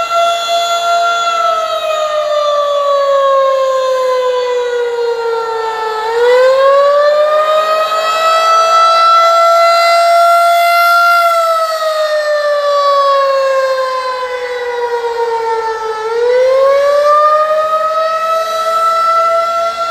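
Federal Signal 2001-SRN/DC single-tone rotating outdoor warning siren sounding the Attack signal. It is a loud wail whose pitch holds high, slides slowly down over about five seconds, then climbs back up and holds again, twice over.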